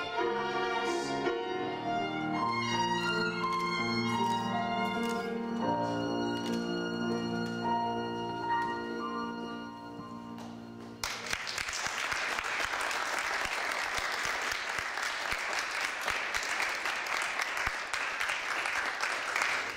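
A boys' choir singing over a low accompaniment; the song ends about eleven seconds in and the audience breaks into steady applause.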